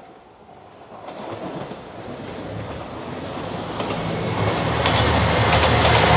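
Approaching three-car JR Shikoku 2700 series diesel express train, the red Anpanman Nanpu, growing steadily louder as it nears. It has a low diesel engine drone, and wheels clicking over rail joints near the end.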